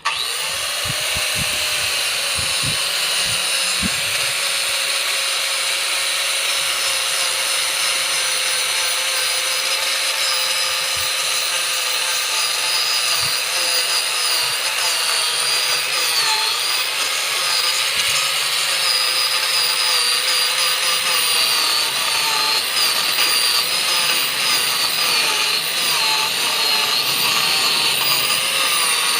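Power carving tool running at speed and cutting into wood, its pitch wavering slightly as it bites.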